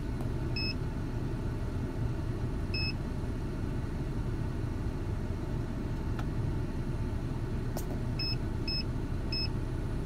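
Ford Ranger engine running at a steady high idle with the HVAC on, a low rumble throughout. The owner puts the high idle down to a sticking throttle position sensor or idle air control valve. Over it, a handheld OBD-II scan tool gives five short electronic beeps as its keys are pressed: one near the start, one a few seconds in, and three close together near the end.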